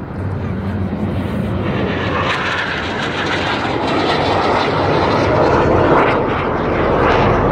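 Aermacchi MB-339 jet trainer flying a low pass, its single Rolls-Royce Viper turbojet giving a steady jet noise that grows louder as the aircraft comes nearer and is loudest about six seconds in.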